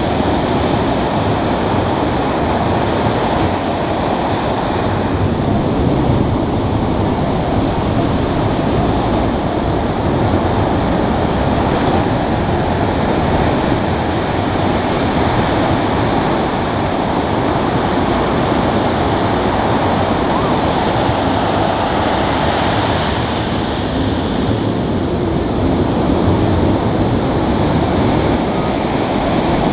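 Ocean surf breaking and washing up the sand at the water's edge: a continuous loud rush of water with gentle rises and falls as each wave comes in.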